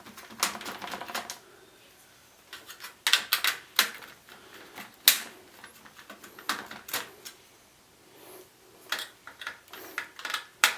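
Irregular light clicks and taps of a screwdriver backing screws out of an LED panel's inner metal plate, with one sharper click about five seconds in.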